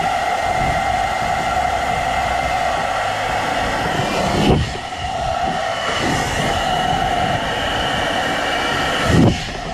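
Philips SenseIQ hair dryer running at maximum speed and high heat: a steady rush of air with a motor whine. Two brief louder swells come about four and a half seconds and nine seconds in.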